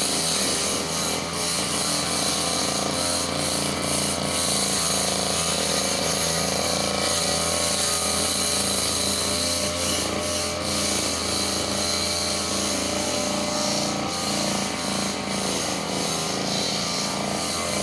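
Petrol brush cutter engine running steadily.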